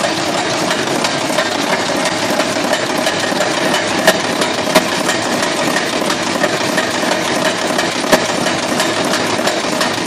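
Padlock-making machinery running: a wire-fed mechanical punch press and its wire-feeding machine give a steady mechanical drone with fast faint ticking. Sharp metal clacks stand out about four seconds in, again a moment later, and once more about eight seconds in.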